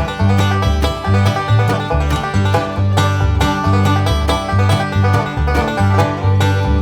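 Background music: an upbeat bluegrass-style tune with plucked banjo and guitar over a steady bass line.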